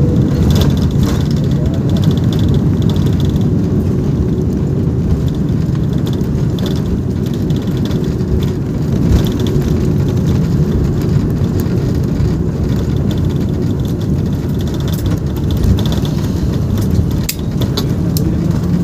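Airliner cabin noise during the landing roll: a steady low roar of engines and rushing air on the runway with the wing spoilers raised, and a few light rattles near the end.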